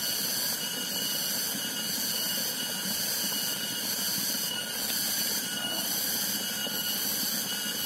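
Steady outdoor chorus of high-pitched insects chirring in several even bands, over a low steady hiss, with no single event standing out.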